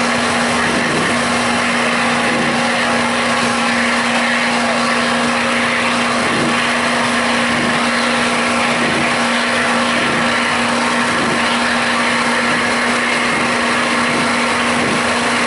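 Duramax diesel V8 of a lifted Chevrolet Silverado mud truck on tractor tires, running loud and steady at an even pitch as the truck creeps slowly through deep mud.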